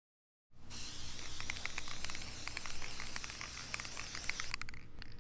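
Aerosol spray paint can hissing in a steady spray, with faint crackling ticks. It starts about half a second in and thins out near the end.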